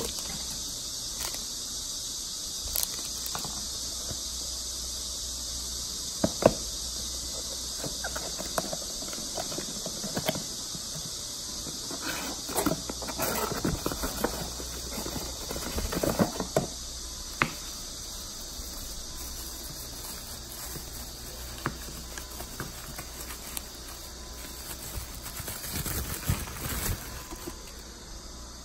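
Cardboard packaging being handled: box flaps, an inner box sliding out and wrapping rustling, with scattered clicks and scrapes, busiest in the middle and again near the end. A steady high-pitched hiss runs underneath throughout.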